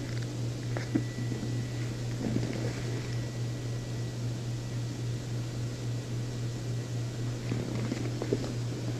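Steady low background hum with an even hiss, and a faint thin high whine that comes in about a second in and fades near the end.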